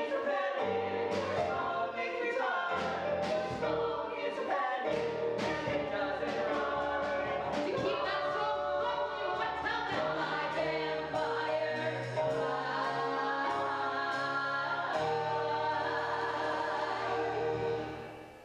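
Musical-theatre cast singing together in full voice over instrumental accompaniment, ending on a long held note that dies away just before the end.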